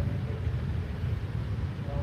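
A steady low rumble throughout, with faint brief tones above it.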